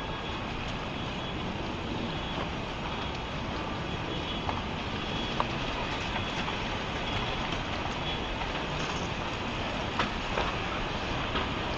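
Tsunami floodwater surging inland: a steady rushing rumble, with scattered sharp cracks and knocks.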